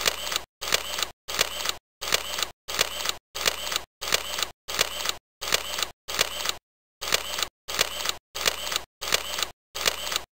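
A slideshow animation sound effect, a short camera-shutter-like click, repeating about fifteen times, roughly every two-thirds of a second, with silence between each one and a slightly longer pause just past halfway.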